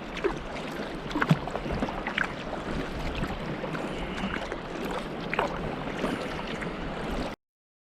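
Water splashing and lapping around a kayak on open lake, with a few sharper splashes, over a steady low wind rumble on the microphone. The sound cuts off suddenly near the end.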